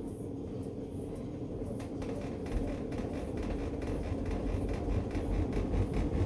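Panasonic fully automatic washing machine running mid-wash with an abnormal mechanical noise: a low rumble with fast, even rattling. From about two seconds in it grows louder and throbs harder.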